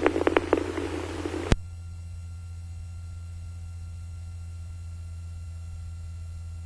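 Police radio channel between transmissions: hiss with a few clicks, cut off by a sharp click about one and a half seconds in, then a steady low hum with faint steady tones.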